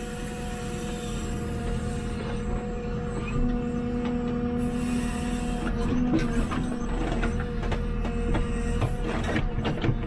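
JCB 3CX backhoe loader's diesel engine running under load with a steady hydraulic whine as the backhoe arm works, the whine strengthening for a couple of seconds around the middle. In the second half come a run of clanks and knocks from the bucket and boom linkage.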